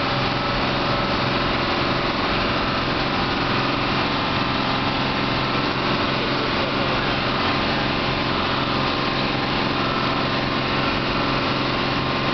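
Bus engine running steadily as the bus drives along, heard from inside the cabin with the door open.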